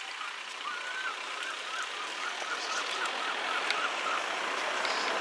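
Level crossing audible warning alarm warbling in a quick, even repeating pattern, faint behind a steady background hiss that slowly grows louder; the warble stops about a second before the end.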